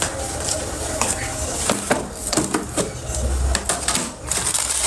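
Kitchen clatter: an irregular run of clicks and knocks, like utensils striking pots and dishes.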